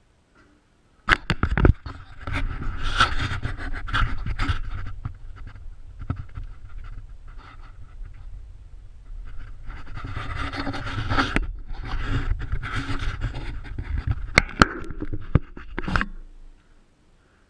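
Arcair air carbon arc gouging gun cutting into a rusted, seized steel pin: a sharp crack as the arc strikes about a second in, then loud crackling of the arc and the hiss of the compressed-air jet blowing molten metal out, easing off for a moment midway and cutting off abruptly near the end. It is blowing a relief hole through the frozen pin so it will let go.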